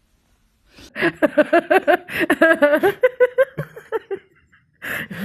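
A person laughing in a quick run of ha-ha pulses from about a second in, then a couple of short breathy bursts near the end.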